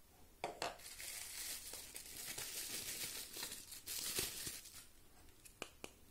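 Bubble wrap crinkling and rustling for about four seconds as a plastic wheel center cap is pulled out of it by hand. It opens with two sharp clicks and ends with a few light clicks.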